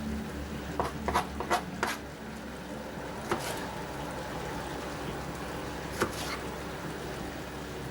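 Steel pocket-knife blade slicing through a tomato, with sharp knocks as the blade meets the surface below: a quick run of four or five knocks about a second in, then single knocks about three and six seconds in, over a low steady hum.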